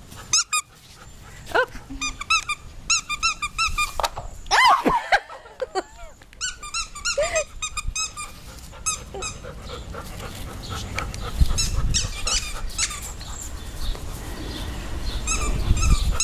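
Borzoi dogs whining and giving short yips, with runs of quick, high repeated squeaks and a louder falling cry about four and a half seconds in.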